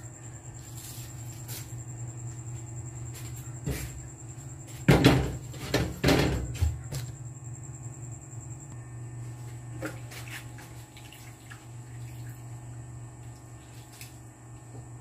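Kitchen pots and basins being handled: a single knock, then about two seconds of louder clattering and knocking. A steady low hum runs underneath.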